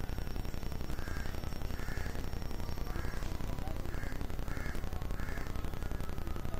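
A crow cawing six times, short harsh calls spaced about half a second to a second apart, over a steady low background hiss.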